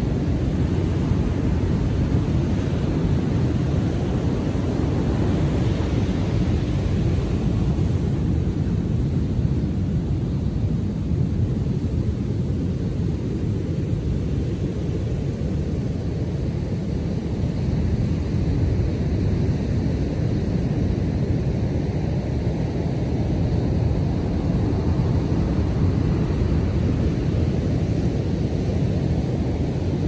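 Heavy storm-driven ocean surf breaking onto a sandy beach: a steady low rumble of crashing waves with the hiss of foam washing up the sand. The hiss swells a couple of seconds in and again near the end as waves run up the shore.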